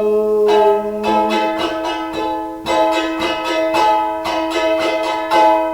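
Charango strummed with quick repeated strokes, several a second, over ringing chords, as instrumental accompaniment with no singing.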